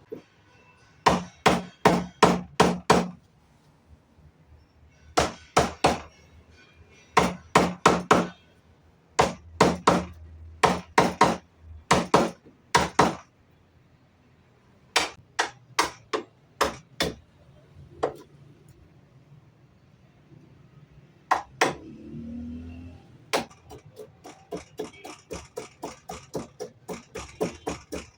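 Hammer striking wood in quick runs of four or five blows with pauses between, a few single blows, then a long even run of about three blows a second near the end.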